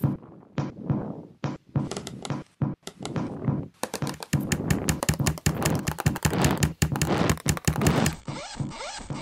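Composed electroacoustic soundscape of processed percussive clicks and knocks: scattered taps at first, building into a dense, rapid clatter about four seconds in. Near the end it changes to a duller, filtered rasp of quick rising chirps.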